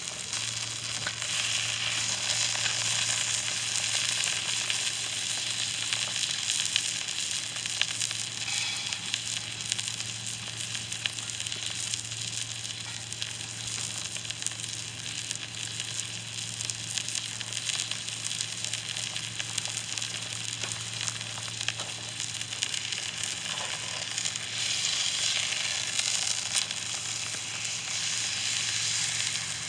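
Beef roast searing in hot oil in cast iron: a steady sizzle with fine crackling and spitting throughout.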